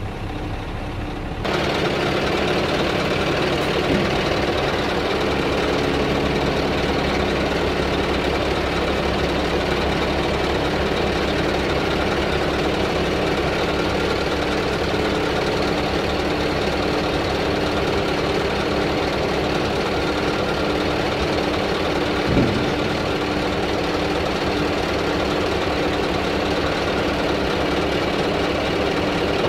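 Scania R tipper truck's diesel engine running steadily while the hydraulic tipper body is raised. One short sharp knock about 22 seconds in.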